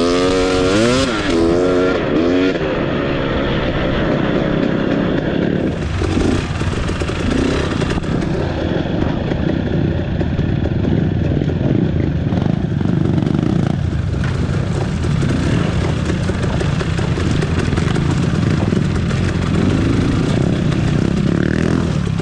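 Off-road trail motorcycle engine revving up and down in the first second or so, then running steadily under way.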